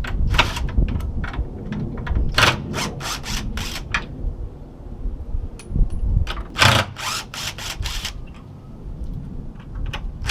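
Impact driver hammering in short bursts, a run of several about two seconds in and another near seven seconds, backing the fasteners out of an old gate latch.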